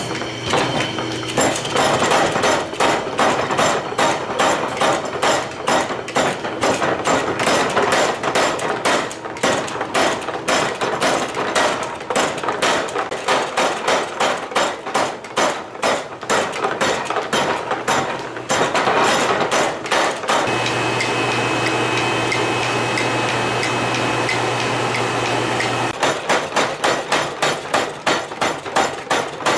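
Mechanical power hammer pounding red-hot steel blade stock on its anvil in rapid, evenly repeated blows. About two-thirds of the way in the blows stop for roughly five seconds, leaving a steady machine hum, then the pounding starts again.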